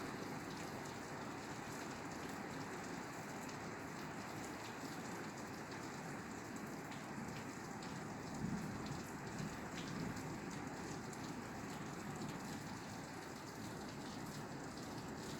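Steady rain falling on a roof, an even patter with scattered individual drops ticking.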